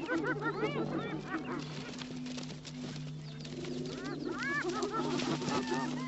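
Spotted hyenas giggling and yelping together in a clamour of short calls, each rising and falling in pitch, as the clan defends its kill from a lion. The calls come in two bursts, one at the start and another from about three and a half seconds in, over a steady low hum.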